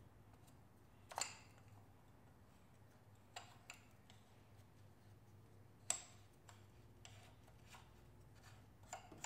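Faint, scattered clicks and taps of the fuel filter and its bowl being handled and fitted back into place on a diesel garden tractor, over a low steady hum. The loudest click comes about a second in, another near the middle, and a few weaker ones between.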